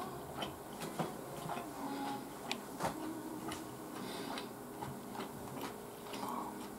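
A person eating: chewing with irregular sharp mouth clicks and smacks.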